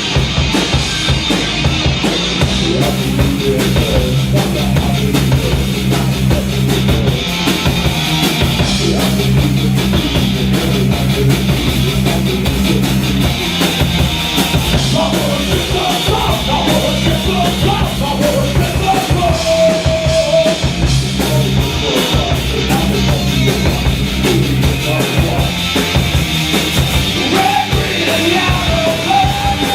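Loud live stoner rock from a band: drum kit and guitar over a sustained low bass line.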